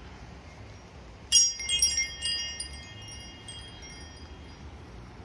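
Tubular wind chime struck about a second in, several tubes sounding in quick succession, then ringing on with clear overlapping tones that fade over a couple of seconds.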